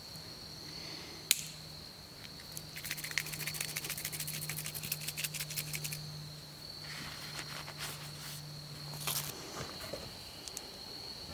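Night insects, crickets, trilling in one steady high tone. A dense run of crackling clicks comes in the middle, with a sharp click just before it. A low steady hum underneath cuts off about nine seconds in.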